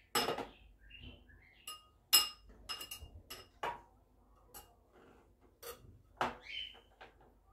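A metal spoon clinking and tapping against a glass dessert cup in a string of light, irregular knocks, some ringing briefly; the loudest knock comes about two seconds in.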